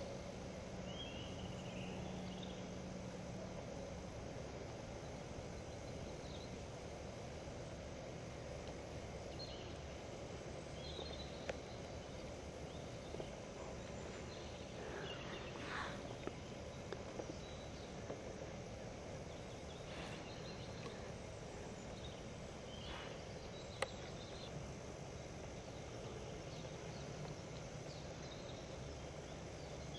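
Faint, steady outdoor forest ambience with hiss, broken by a few short, high bird chirps scattered through it and three or four sharp clicks.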